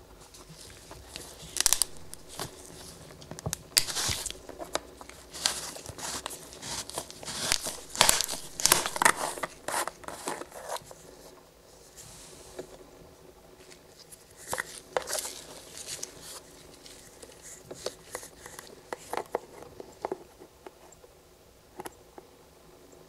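Gloved hands unscrewing the plastic screw cap of an engine oil bottle and peeling its seal, with crackling, crinkling and clicking of the plastic, densest over the first ten seconds. After that come sparser clicks and rubs as the open bottle and cap are handled.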